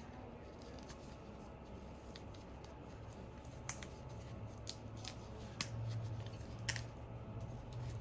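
A few faint, sharp clicks from small tools and parts being handled on a repair bench, over a low hum that gets louder in the second half.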